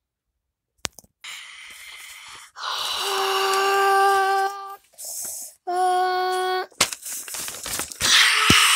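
Home-made vocal sound effects. A held, steady hummed note lasts about two seconds, a second, shorter note at the same pitch follows, and near the end there is breathy hissing.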